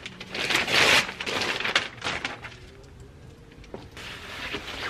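Wrapping and tissue paper rustling and crinkling as a gift box is opened, loudest in the first second, then scattered crackles and softer rustling as the coat is lifted out.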